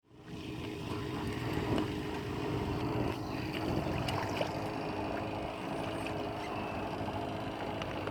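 Motorboat engine running steadily as the boat moves through floodwater, with water noise around it.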